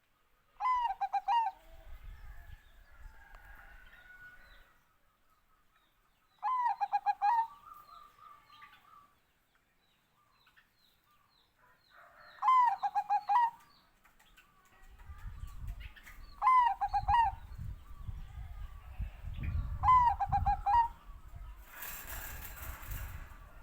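Zebra dove (perkutut, Bangkok song line) cooing: five short rippling coo phrases a few seconds apart, with faint chirps between them. A low rumble runs under the second half, and a brief noisy rustle comes near the end.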